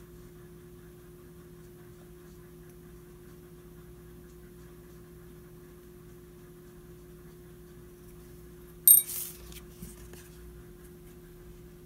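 A steady low hum, then about nine seconds in a sharp clink with a short ring, followed by a few softer knocks, as the paintbrush is set down and the swatch card picked up.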